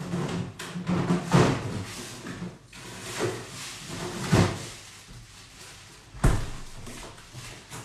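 Irregular knocks and bumps of kitchen handling, with a sharp knock about six seconds in.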